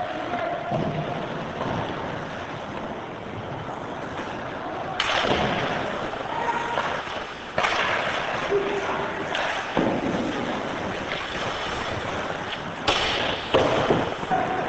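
Ice hockey play on a rink: skates scraping and hissing on the ice, with several sudden louder scrapes or clatters about five, eight, ten and thirteen seconds in, over spectators' voices.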